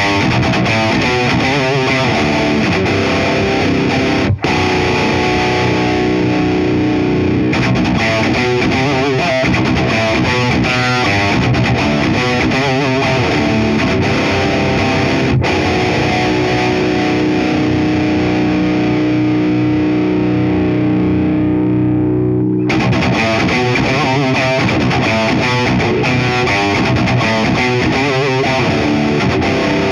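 High-gain distorted electric guitar, a Gibson Custom 1959 VOS tuned to drop B, played through the EVH 5150III 100S amp's channel two into a 4x12 cabinet. Heavy riffing stops briefly about four seconds in. Long held chords ring out through the middle and cut off suddenly about 23 seconds in, then the riffing starts again.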